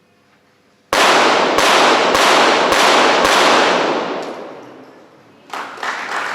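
.22 Short rapid-fire pistols firing a five-shot series: five sharp shots a little over half a second apart, each with an echoing tail that dies away. Applause starts about five and a half seconds in.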